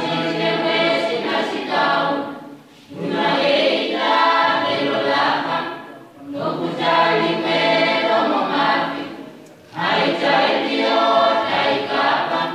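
A small mixed choir of students singing unaccompanied in harmony, in four long phrases with brief breaths between them.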